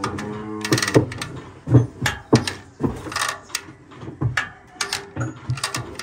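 Irregular knocks and clanks of cattle being handled in a metal corral chute and scale, with a short low pitched sound at the start.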